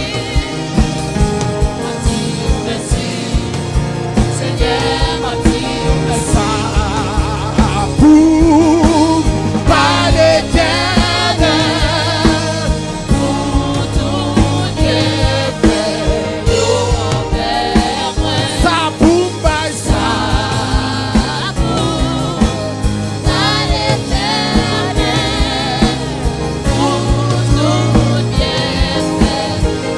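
Live gospel worship song: a singer with a wavering vibrato leads over a band with a steady drum beat.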